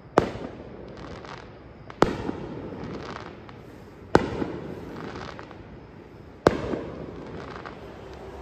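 Fireworks going off: four sharp bangs about two seconds apart, each followed by a decaying tail.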